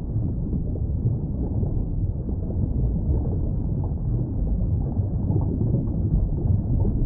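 Underwater ambient noise: a steady, muffled low rumble with nothing in the upper range and no distinct events.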